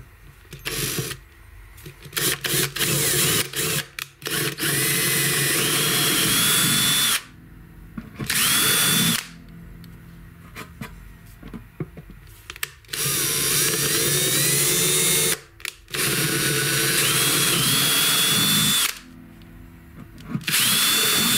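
Handheld power drill running in a series of bursts a second to three seconds long with short pauses between, its motor whine rising in pitch as it spins up, while the bit bores bridge-pin holes through an acoustic guitar's wooden bridge and top.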